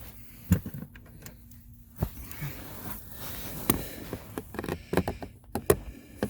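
Scattered sharp clicks and knocks of hands and pliers working the plastic clips of the cabin air filter cover behind the glove box, with a cluster of clicks in the second half.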